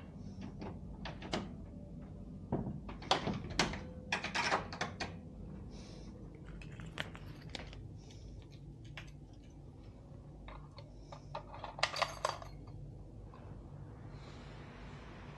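Knocks, clicks and clatter of a door and small objects being handled in a small room, thickest a few seconds in and again near the end, over a low steady hum.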